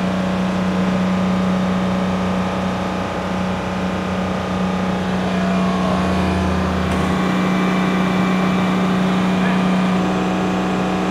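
A steady machine drone holding one constant low pitch. A deeper hum joins it briefly around six seconds in.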